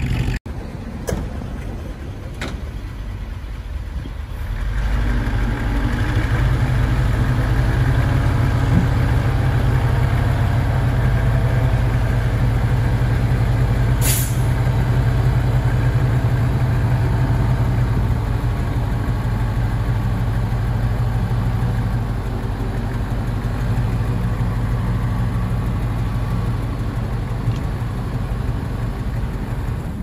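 Heavy diesel engine of a dump truck or bulldozer running, growing much louder about four seconds in and then holding steady. A short, sharp hiss comes about halfway through.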